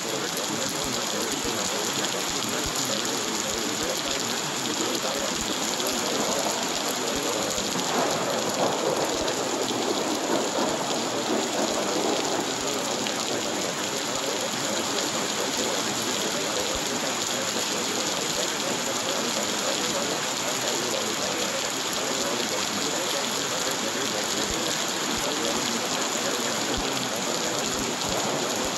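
Steady rain falling, an even hiss that swells slightly about eight seconds in and settles back a few seconds later.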